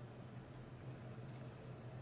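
Quiet room tone with a steady low hum and one faint short click a little over a second in.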